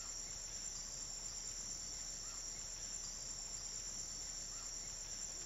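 Crickets chirring in a steady, faint, high-pitched chorus, with a few faint short calls now and then.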